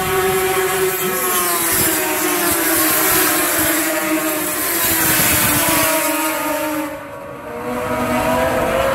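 Several two-stroke racing snowmobiles running hard around an ice oval, their engine notes rising and falling as they pass. The sound dips briefly about seven seconds in, then climbs again as throttles open.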